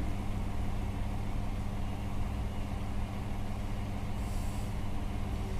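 Steady low mechanical hum, with a brief hiss about four seconds in.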